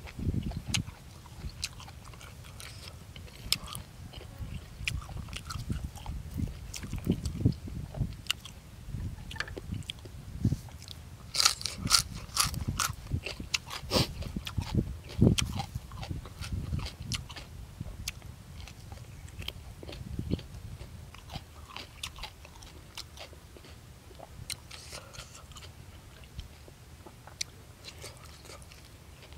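Close-miked chewing and mouth sounds of a person eating boiled buffalo offal and fresh vegetables, a steady run of small wet clicks, with a burst of louder crisp crunches a little before halfway.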